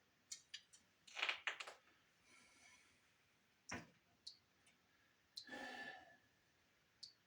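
Near silence broken by scattered small clicks, a quick cluster of clicks a little over a second in, and a single knock near the middle, with a short soft rushing noise lasting about half a second later on.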